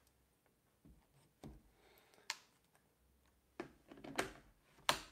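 Mirrorless camera bodies and a small kit lens being handled on a desk: about half a dozen light clicks and taps, the sharpest one near the end.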